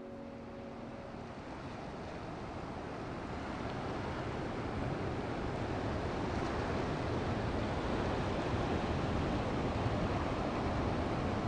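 Sea surf washing onto a beach, a steady rushing that swells louder over the first few seconds. The last piano notes die away about a second in.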